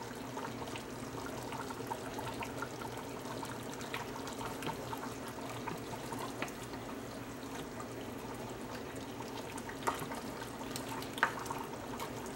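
A black ladle stirring and scooping through simmering goat-meat tamarind soup in a stainless steel pot: broth sloshing and dripping with small ticks. Near the end the ladle knocks sharply against the pot twice.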